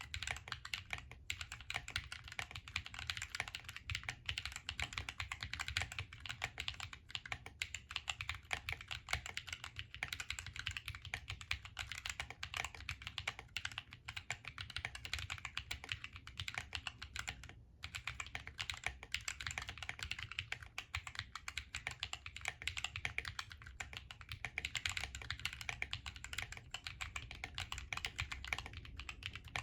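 Continuous fast typing on a Drop Planck ortholinear mechanical keyboard with lubed Akko Lavender Purple tactile switches, an FR4 plate, case and plate foam and DSA keycaps: a dense stream of muted keystroke clacks, with a brief pause a little past halfway.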